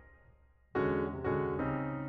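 Background piano music. It dies away briefly at the start and comes back in with new notes just under a second in.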